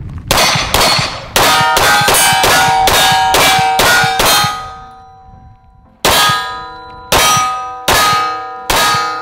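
Rapid pistol fire at steel targets, each shot followed by the ringing clang of a hit steel plate. A fast string of about eleven shots, a pause of about a second and a half, then four slower shots about a second apart, the steel ringing on between them.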